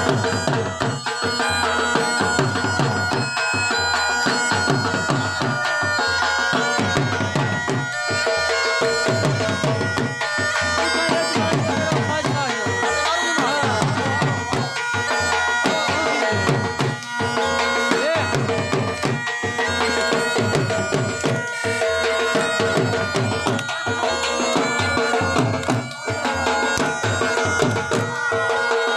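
Background music: a melody over steady held drone tones, with a regular drum beat about once a second.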